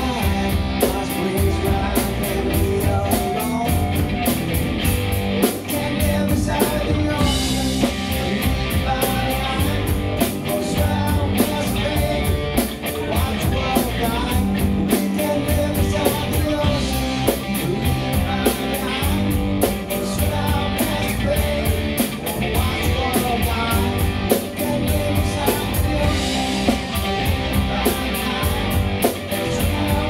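Live rock band playing, with electric guitar and drum kit keeping a steady beat.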